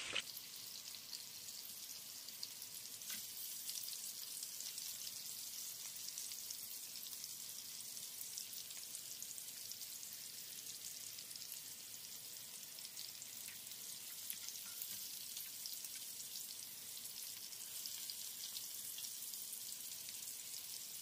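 Egg-battered cauliflower florets frying in shallow oil in a pan: a steady sizzle with fine crackling.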